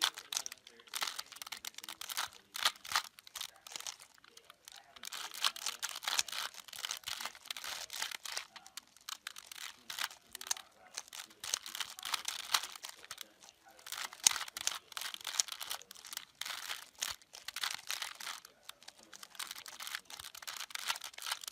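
A plastic 3x3 puzzle cube being turned rapidly by hand during a solve: dense runs of clicking and clacking as the layers turn, broken by a couple of short pauses.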